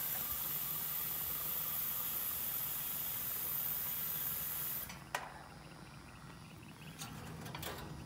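Nitrogen hissing steadily through the gauge manifold and hoses into an air-conditioning system that has lost its refrigerant, as it is pressurized for a leak test. The hiss cuts off abruptly about five seconds in, followed by a sharp click and a few faint clicks.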